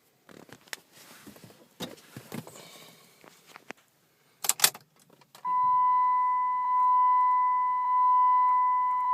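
Keys rattling and being handled, a sharp click as the ignition key is turned in a 2008 Ram pickup, then a steady high electronic warning tone from the dash that swells slightly about once a second.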